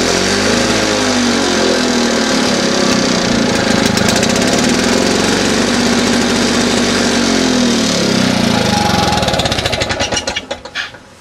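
Victa lawn mower engine running at full throttle on a rebuilt carburettor, its pitch dipping and rising a couple of times, then dying away about ten seconds in. It sounds a bit rich to the owner.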